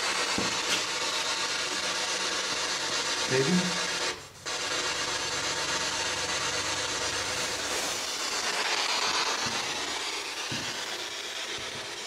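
Radio static from a PSB-7 spirit box: a steady hiss that cuts out briefly about four seconds in.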